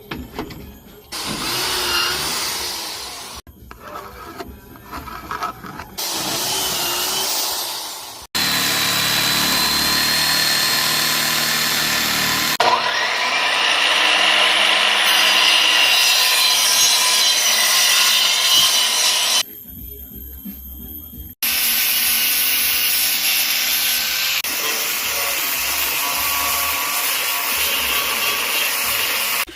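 Power tools cutting and shaping wood, heard in a series of short clips that stop and start abruptly, with a steady motor hum running in one of them.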